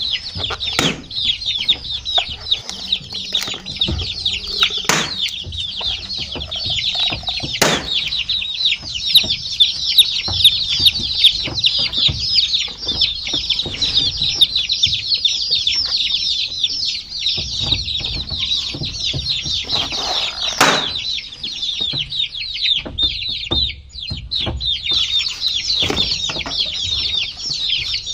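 A group of baby chicks peeping continuously, many short, high, downward-sliding peeps overlapping. A few sharp knocks sound here and there, the loudest about a third of the way in and again about three quarters through.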